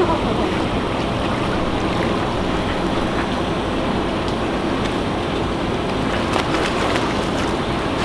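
Water splashing and fizzing where a dense school of fish churns the surface, with wind rumbling on the microphone.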